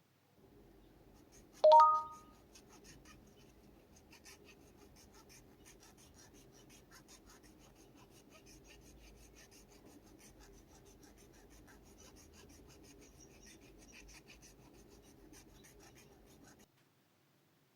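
Fine, steady scratching and rubbing on a small hard surface, like light work on a small part, with one short ringing clink about two seconds in.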